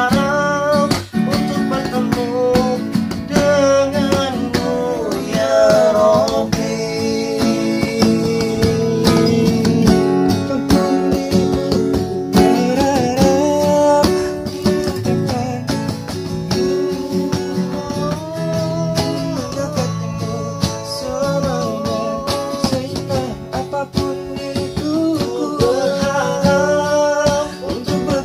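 Acoustic guitar strummed in chords, with a man singing a slow melody over it.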